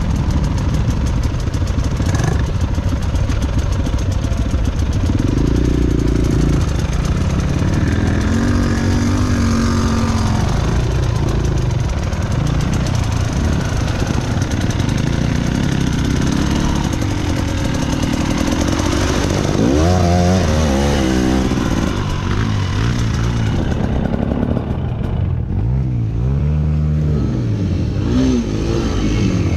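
Enduro motorcycle engine running under way, its revs rising and falling with the throttle, with sharper rev swells about twenty seconds in and again near the end.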